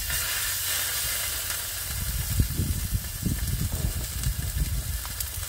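Raw beef sizzling on a hot grill pan. The sizzle starts suddenly as the meat goes down and holds as a steady hiss. A few low knocks come in the middle.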